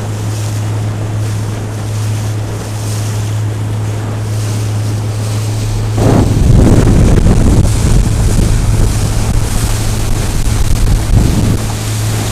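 A pump-out boat under way: its engine runs at a steady low drone while water rushes past the hull and wind buffets the microphone. About halfway through, the wind buffeting turns louder and rougher.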